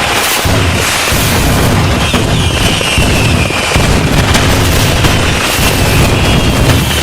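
A dense, continuous fireworks barrage: booms and crackling pops overlapping without a break, with a few falling whistles over the top.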